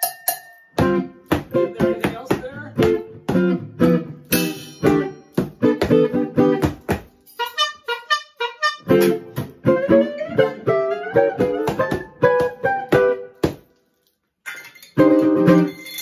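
Archtop guitar playing a rhythmic groove of chords and single-note runs, with hand percussion played along. The sound cuts out completely for about a second near the end.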